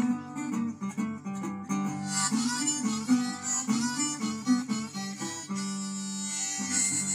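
Live acoustic guitar and harmonica playing an instrumental break of a song, the harmonica carrying the melody over strummed chords.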